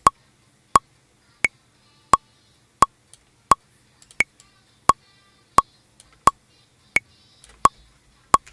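Roland SP-404MKII's metronome clicking steadily while the TR-REC step sequencer runs, at about 87 beats a minute, with a higher, accented click on every fourth beat marking the bar.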